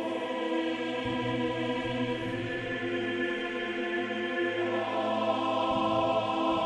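Background music: sustained, held chords over a low drone, moving to a new chord about halfway through.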